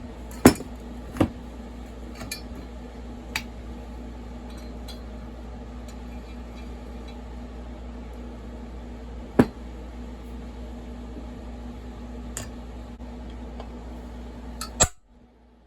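Metal chainsaw parts clinking and knocking on a workbench as the split crankcase is handled, about six separate sharp clinks over a steady low hum that cuts off near the end.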